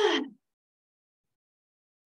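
A woman's brief voiced 'ah', falling in pitch and over within half a second; the rest is silence.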